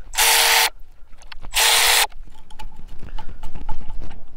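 Cordless power ratchet running in two short bursts, about half a second each, at the start and about two seconds in, spinning out the water pump's 8 mm bolts. After that come light metal clicks and rattles as the loosened bolts and the pump are handled.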